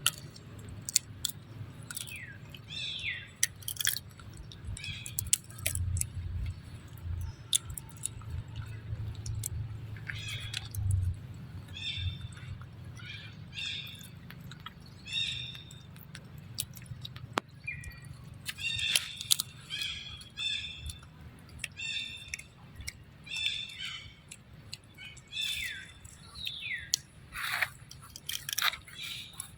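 Baby monkey giving many short, high-pitched squeaky calls in clusters, several of them falling in pitch, with some chewing sounds.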